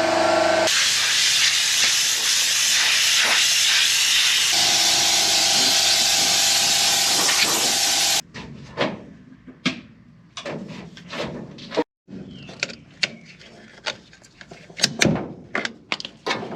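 Loud steady hiss of compressed air from a blow gun, blowing down a combine, for about eight seconds, then cutting off abruptly. After that comes a quieter run of scattered clicks and knocks.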